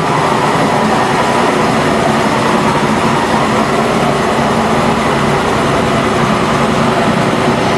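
MSI horizontal baler and shredder running: a loud, steady machine noise with a faint hum and no pauses.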